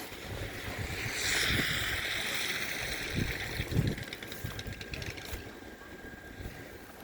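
A vehicle passing on a snowy street, its hiss strongest from about a second in to near four seconds, over low rumbling wind noise on the microphone.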